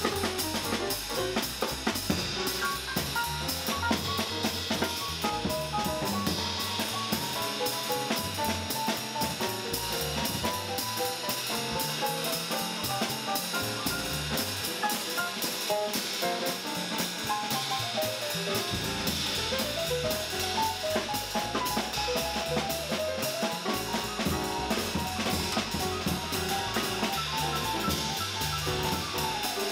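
Live small-combo jazz: a drum kit with busy cymbal and snare work, a walking upright double bass, and a quick melody line of running notes over them. The bass drops out for a few seconds now and then while the drums and melody keep going.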